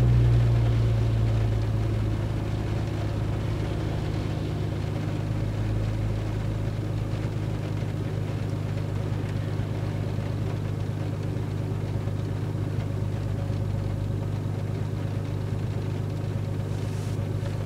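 Nissan RB25DET turbocharged straight-six idling shortly after start-up, still warming. Its fast idle eases down over the first couple of seconds and then holds at a steady idle of about 1000 rpm, heard from inside the cabin.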